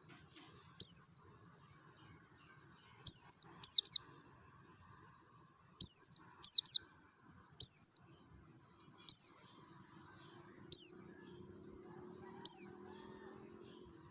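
A white-eye (pleci) giving sharp, high chirps that slur steeply downward, singly or in quick pairs, about every one to two seconds.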